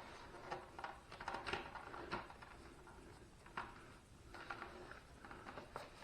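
Faint, irregular clicks, knocks and rustling of parts and wiring being handled.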